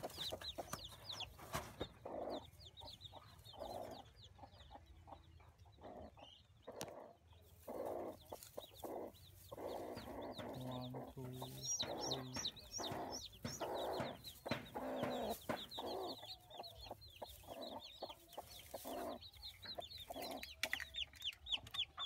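Broody hen clucking in short repeated calls while her newly hatched chicks peep in quick, high, falling chirps, the peeping thickest at the start and near the end.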